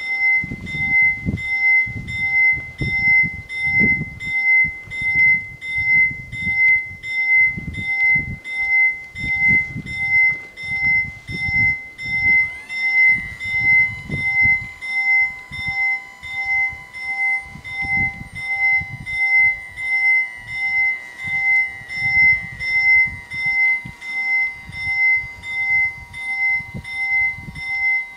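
Electric warning bells of an Italian TM 2000 level crossing ring in an even, repeating beat of about one and a half strikes a second. About twelve seconds in, a steady whine rises briefly in pitch and then holds as the barrier motors lower the booms.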